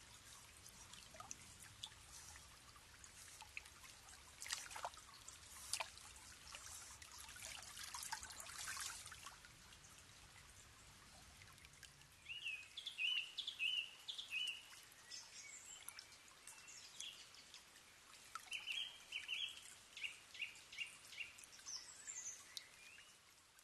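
Faint trickling, dripping water with scattered small clicks. From about halfway a bird calls in several runs of short, high chirps.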